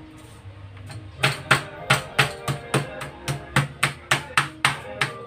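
Meat mallet pounding a raw, uncovered chicken breast on a plastic cutting board to flatten it: a steady run of quick strikes, about four a second, starting about a second in.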